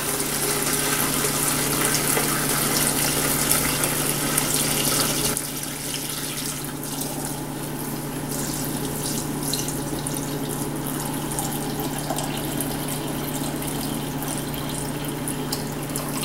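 Chicken stock pouring in a steady stream from a pot through a mesh strainer into a plastic pitcher in the sink, splashing as the pitcher fills. The pour gets a little quieter about five seconds in, and a steady low hum runs underneath.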